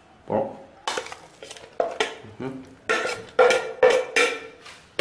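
Metal spoon knocking and scraping against a plate and an aluminium cooking pot as pieces of pork are pushed in. It is a string of sharp clatters, some leaving a short ringing tone.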